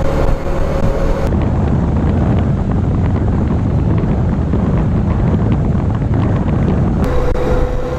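Wind rushing over the microphone, mixed with the 1991 Kawasaki Voyager's engine and road noise while riding at speed.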